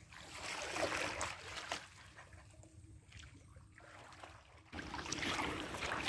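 Water splashing and lapping as a small boat moves through a flooded rice paddy. The sound is busier in the first two seconds, quieter in the middle, and rises suddenly and stays louder about three-quarters of the way in.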